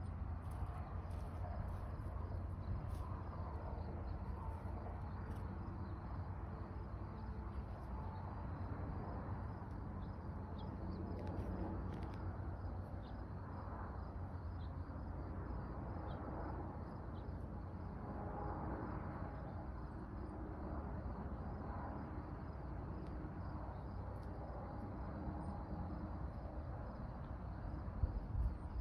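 Outdoor ambience: faint, steady insect chirping over a low rumble, with a couple of knocks near the end.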